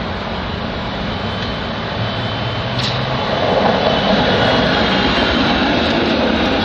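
City tram running along its street-level rails toward the listener and passing close by, its rumble growing louder from about halfway through.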